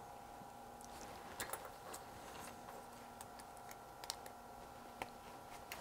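Faint, scattered small clicks as fingers handle the tip of an oscilloscope probe, over a faint steady hum.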